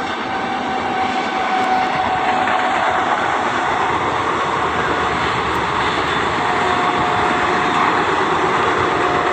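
Passenger train running past: a loud, steady rushing noise that grows a little in the first second, with a faint steady whine through it.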